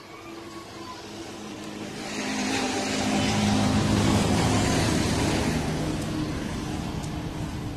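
A motor vehicle passing by, its engine hum and road noise growing louder to a peak about four seconds in and then fading away.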